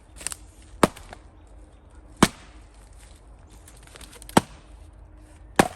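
Axe blows splitting firewood: four sharp cracks, one to two seconds apart.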